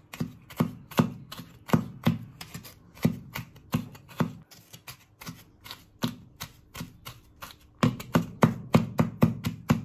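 Chinese cleaver mincing garlic on a wooden cutting board: a steady run of chops, about three a second, coming quicker and louder near the end.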